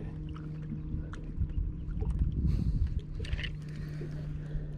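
A boat motor humming steadily at one pitch, with low rumbling water and wind noise that swells for a moment about two seconds in.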